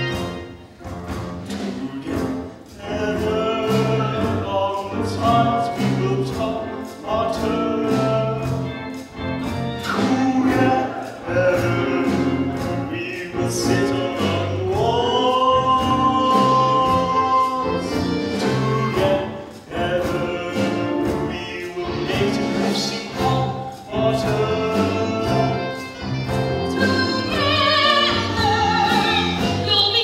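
A musical-theatre song: singing voices over instrumental accompaniment with a steady beat, with one long held note about halfway through.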